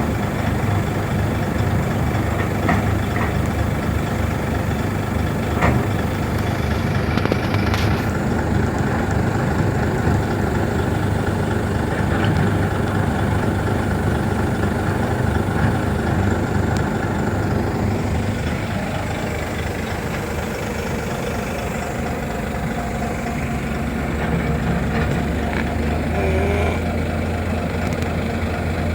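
Heavy diesel engines of a Komatsu PC500 excavator and a Volvo dump truck running steadily during loading, with a few short sharp knocks, the clearest about six and eight seconds in.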